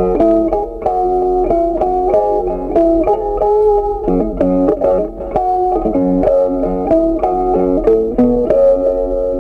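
Background music: a tune of quick plucked-string notes over held chords.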